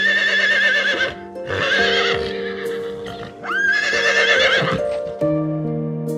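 Horse whinnying three times, each a high, wavering call about a second long, over soft background music with sustained notes.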